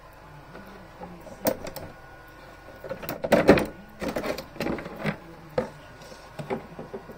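Handling noise of irregular knocks, taps and rubbing, with a dense cluster of knocks about three to four seconds in.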